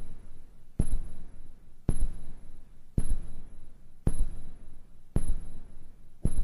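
Slow heartbeat sound effect: a deep thump about once a second, six in all, over a faint steady high tone.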